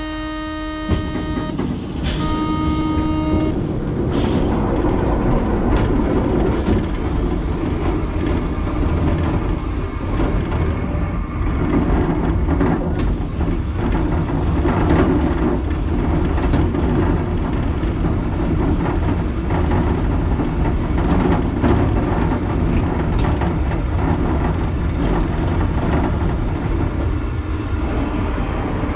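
Two long, steady tones of a departure buzzer in the first few seconds, then the Sky Ship amusement ride car running along its rail: a continuous rumble with frequent small clicks and rattles.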